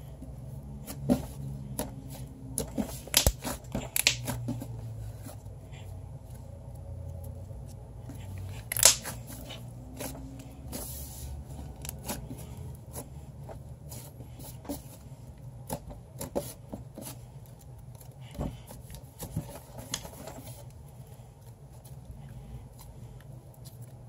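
Slime with baby powder worked into it being stretched and kneaded by hand: sticky clicks and crackles, thickest in the first few seconds, with one loud pop about nine seconds in, over a faint low hum.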